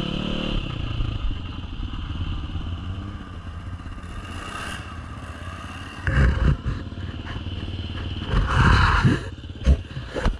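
Enduro dirt bike engine heard from on the bike, easing off about half a second in and then running at low revs over rough ground, with short bursts of throttle about six and eight-and-a-half seconds in. Near the end, a few sharp knocks and scraping as the camera is handled.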